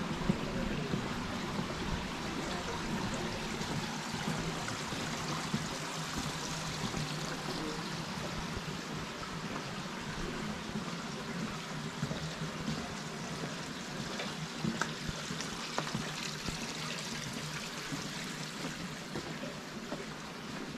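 Steady rushing of flowing water, like a stream or channel, with a few faint ticks over it.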